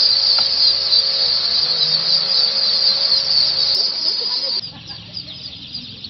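A dense chorus of hundreds of ducklings peeping, a loud high-pitched din of overlapping calls. A little past two-thirds of the way through, it drops suddenly to a quieter crowd of peeps in which single calls can be picked out.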